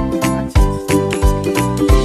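Background music with a steady beat and a bright, jingly melody.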